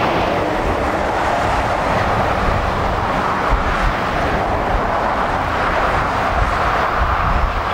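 Steady, loud rushing engine and traffic noise with no clear pitch and no distinct events: the running A400M turboprops and the nearby road traffic blended together.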